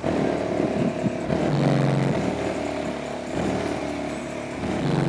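Bass-heavy music played loud through a car's 12-inch subwoofers driven by a Rockford Fosgate T1500 amplifier, a low pattern repeating about every three seconds.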